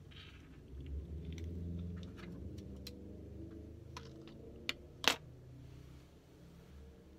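Quiet handling noise: a brief rustle, then a scatter of light clicks and one sharper click about five seconds in, as eyeglasses are taken off and a headscarf handled. A low hum runs underneath.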